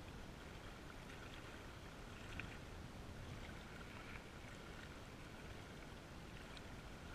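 Faint, steady wind noise on the microphone, with small waves lapping at a rock shoreline and a few faint ticks.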